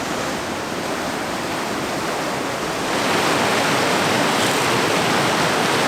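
Ocean surf washing steadily, growing louder about halfway through.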